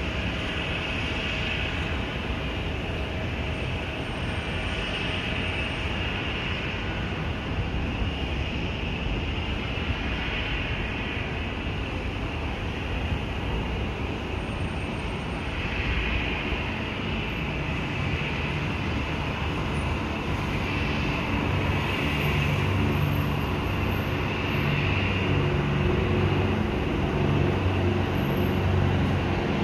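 Piper PA-23-250 Aztec twin-engine plane climbing out after takeoff, over a steady rush of distant traffic noise. From about halfway its two six-cylinder Lycoming piston engines come through as a low, even drone that grows louder as the plane comes overhead.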